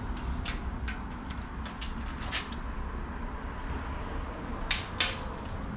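Wrench tightening a cylinder head bolt on a Cadillac Northstar V8: scattered metallic clicks and clinks, with two sharp clicks close together near the end.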